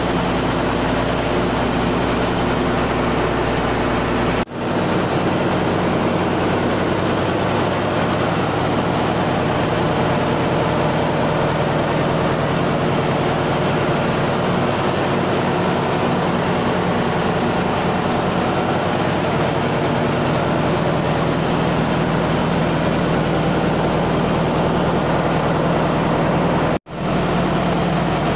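Steady, loud drone of a ship's engine-room machinery running, a low hum under a broad mechanical din. It drops out briefly twice, about four and a half seconds in and near the end, and the low hum shifts after the first break.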